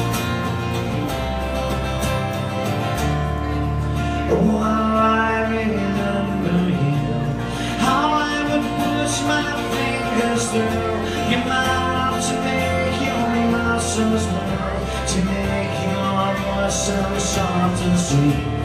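Live acoustic guitar and electric bass playing an instrumental passage of a folk-rock song, with a melody line over them that slides up into its notes about four and eight seconds in.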